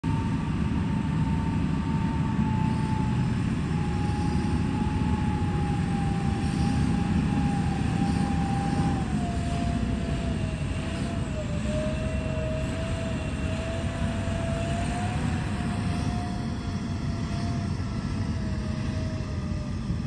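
XCMG rigid mining dump truck driving by under load: a steady low engine rumble with a thin whine above it that slowly falls in pitch as the truck moves away.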